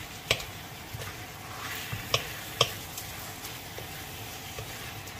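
Shrimp, tomatoes and onions sizzling steadily in a stainless-steel wok while being stirred with a wooden spatula, which knocks sharply against the pan a few times.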